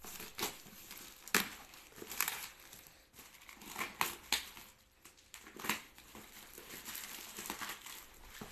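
Parcel packaging crinkling and rustling as it is handled and torn open, with irregular sharp crackles.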